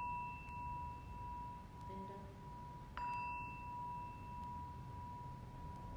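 Small singing bowl struck with a mallet: a clear, steady ring carrying on from a strike just before, then struck again about three seconds in and ringing on.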